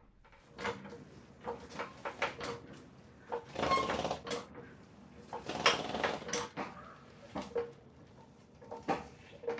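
Hydraulic floor jack being pumped by its long handle to lift the front of an SUV: a faint, irregular string of clicks and creaks with the pump strokes.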